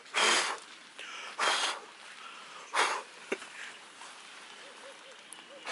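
Three short, breathy sniffs close to the microphone, about a second and a half apart, with a sharp click shortly after the third.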